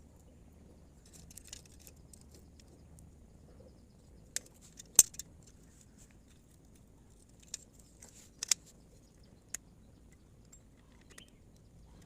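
Scattered sharp clicks and taps of small hard objects being handled, the loudest about five seconds in and a quick pair near eight and a half seconds, over a faint steady hum.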